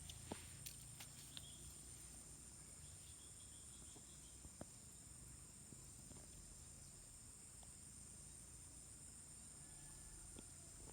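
Faint, steady high-pitched insect chirring, with a few soft ticks or clicks, one just after the start and one about four and a half seconds in.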